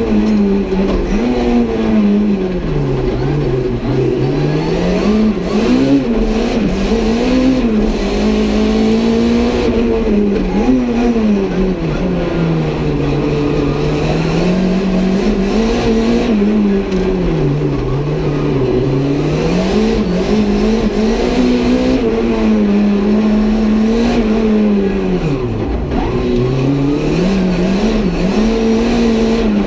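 Renault 5 GT Turbo's turbocharged 1.4-litre four-cylinder engine, tuned to about 300 hp, heard from inside the cabin while driven hard: the revs climb and fall again and again, with one deep drop in revs a few seconds before the end.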